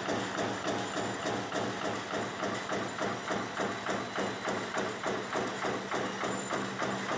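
Razor wire production machinery running steadily: a regular beat of about three strokes a second over a constant motor hum.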